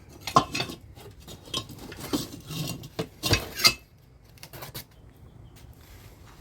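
Metal engine parts and hand tools clinking and clanking as they are handled. There are several sharp metallic knocks in the first four seconds, then a few fainter ones.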